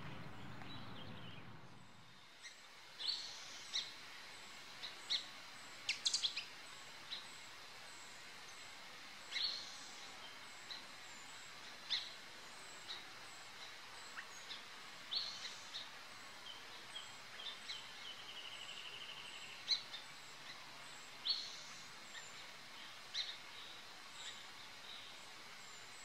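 Small birds calling: short high chirps and calls every second or two, with a brief rapid trill about two-thirds of the way in. Behind them are a faint, evenly repeated high ticking and a faint steady outdoor background.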